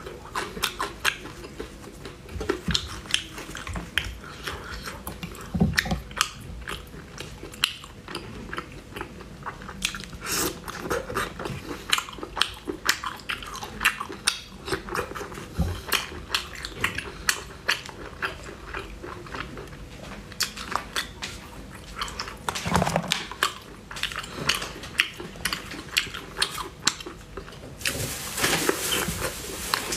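Close-up mouth sounds of a person biting and chewing cooked snail meat in spicy broth: many small wet clicks and smacks, with a louder noisy stretch near the end.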